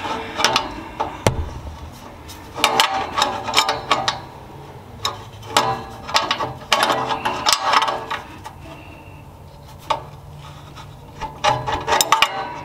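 Hand ratcheting wrench clicking in several short bursts of rapid clicks with pauses between, as it snugs a wideband oxygen sensor into an exhaust header.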